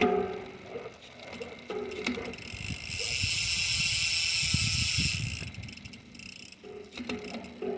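Bicycle freewheel ratcheting as a wheel spins, heard as a loud, fast buzzing click from about two and a half to five seconds in. Lighter mechanical clicks come before and after it.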